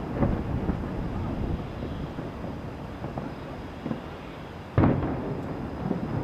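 Aerial fireworks shells bursting in the distance. There is a boom just after the start, a faint one near four seconds and the loudest, sharpest boom about five seconds in, then another shortly before the end. Each trails off in a rumbling echo.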